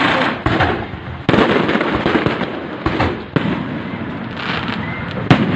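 Fireworks going off: a dense, continuous crackle broken by sharp bangs about once a second, the sharpest about five seconds in.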